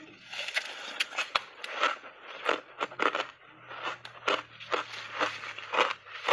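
Shaved ice heavily coated in matcha powder being crunched and chewed in big bites, close to a clip-on microphone: a fast, uneven run of sharp crunches.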